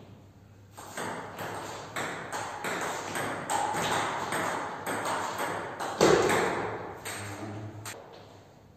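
Table tennis rally: the plastic ball clicks off the rackets and bounces on the table in quick alternation, with the loudest hit about six seconds in. The rally stops shortly before the end.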